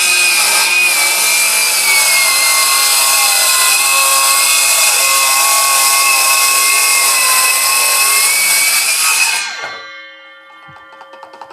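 Ryobi R18CS7-0 18V brushless cordless circular saw running at full speed on a High Energy battery and cutting through wood. Its high whine drops slightly in pitch under the load of the cut and picks back up near the end. The trigger is released about nine and a half seconds in, and the blade winds down with a fading ring.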